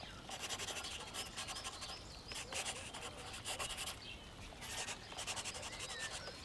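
Black felt-tip marker rubbing on paper as wheel circles are inked, a scratchy sound in quick repeated strokes with a couple of brief pauses.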